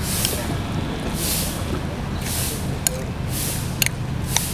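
A metal spoon stirring thick chicken rice porridge in a ceramic bowl: soft scraping strokes about once a second, with a few sharp clinks of the spoon against the bowl near the end. A steady low rumble runs underneath.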